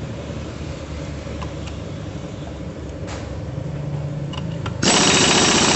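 Pneumatic impact wrench on the front drive-pulley nut of a Honda Vario scooter's CVT. A low steady hum, then near the end the wrench fires with a sudden loud burst that runs on, undoing the nut.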